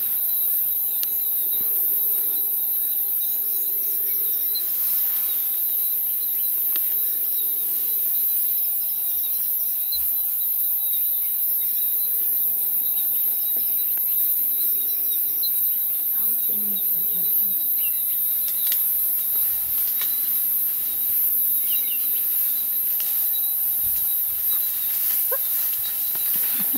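Steady high-pitched insect buzz with a couple of constant lower insect tones, and short bird chirps now and then.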